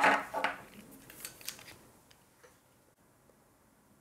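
Hands handling a laptop and pressing its keys: a cluster of short scrapes and taps, a few weaker ones about a second later, then it goes quiet apart from a faint click at the end.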